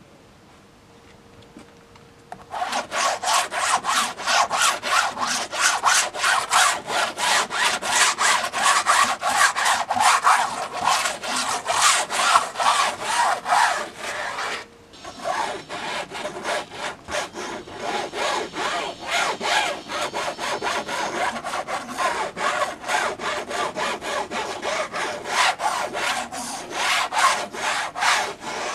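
A sponge scrubbing wet paint back and forth across a white painting surface in quick, rhythmic rubbing strokes. The strokes start a couple of seconds in, break off briefly about halfway, then carry on until near the end.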